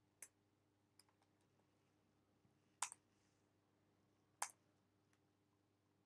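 Computer keyboard keys pressed a few at a time, sharp separate clicks with pauses between them, the two loudest about three and four and a half seconds in, over a faint steady hum.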